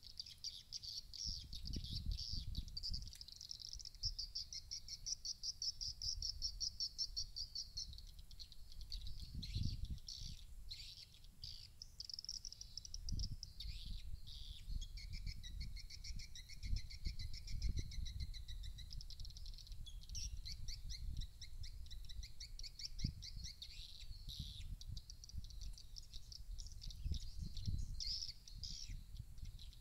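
Swiftlet lure call broadcast from a swiftlet house's speakers: fast, high chirping trills in runs that break off and resume, meant to draw swiftlets in to roost. Wind gusts rumble on the microphone.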